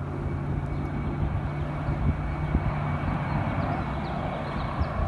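Jet airliner passing low overhead, a steady engine rumble that slowly grows louder as it approaches.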